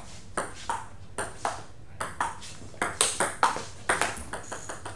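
Table tennis rally: the celluloid-type ball clicking off the rubber bats and bouncing on the table, a quick run of sharp ticks, several a second, that stops about four seconds in when the point ends.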